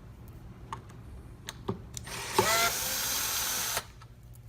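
Screw gun spinning up and running for about a second and a half as it backs a screw out of a vacuum filter plate, after a few light clicks.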